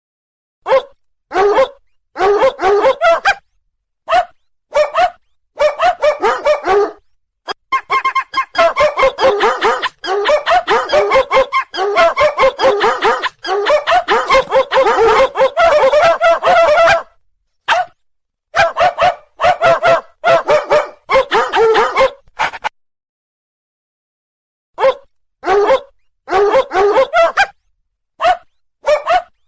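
Dogs barking in spurts of short, rapid barks that start and stop abruptly, with dead silence between spurts; the longest and densest run of barking comes in the middle.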